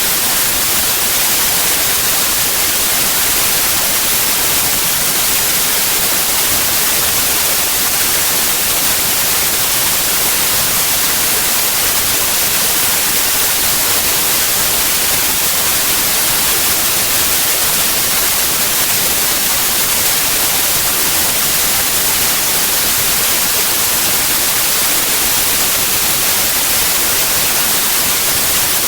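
Steady, loud white noise: an even hiss, strongest in the high frequencies, that does not change.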